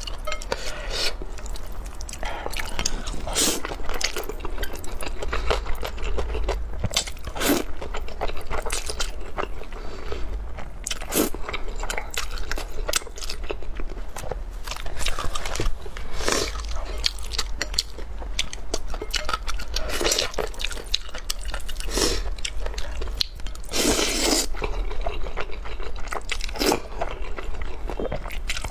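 Close-miked eating sounds of sauced noodles with peppers: steady wet chewing and biting, with frequent short smacks and clicks of the mouth. A longer noisy burst comes a little before the end, and noodles are slurped near the end.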